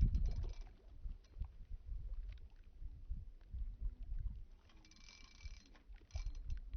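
Outdoor lakeside ambience: an uneven, gusty low rumble of wind buffeting the microphone, with a brief hiss about five seconds in and again near six seconds.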